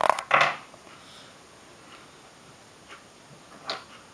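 Rough coughing in the first half second, then a quiet room with a couple of faint light knocks of wooden puzzle pieces being handled on a table.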